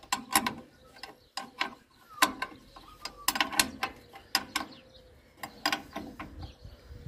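Ratchet wrench clicking in short runs of sharp clicks as a bolt is turned.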